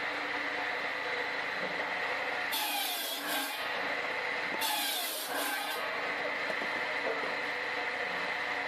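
Firewood circular saw running with a steady whine, its blade cutting through a log twice, about two and a half seconds in and again near the middle, each cut lasting about a second.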